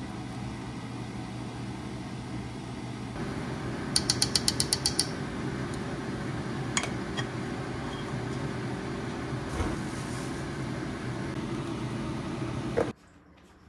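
Small electric pet clipper buzzing steadily while a cat's paw fur is trimmed. It gets a little louder about three seconds in, a quick run of about nine sharp clicks comes about four seconds in, and the clipper switches off abruptly near the end.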